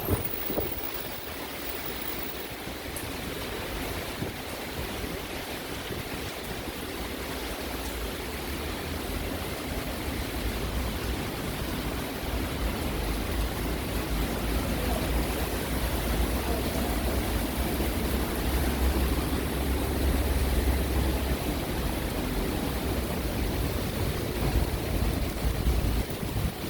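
Heavy rain falling steadily, with wind buffeting the microphone as a low rumble that builds through the second half and drops away just before the end.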